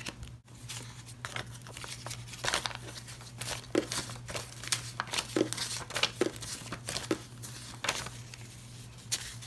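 US paper banknotes being picked up and counted by hand: a run of short crisp rustles and snaps as the bills are flipped and shuffled.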